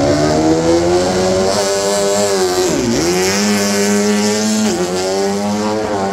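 KTM MotoGP bike's V4 engine revving hard and held at high revs. Its pitch climbs over the first second or so, then drops sharply and snaps back up twice, once about halfway through and again near the end.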